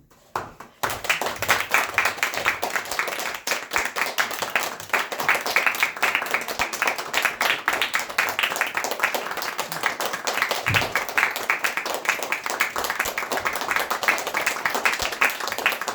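Audience applauding: many hands clapping densely, starting suddenly about a second in.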